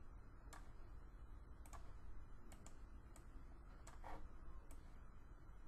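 Faint, irregular clicks of a computer mouse, several over the few seconds, over a low steady hum.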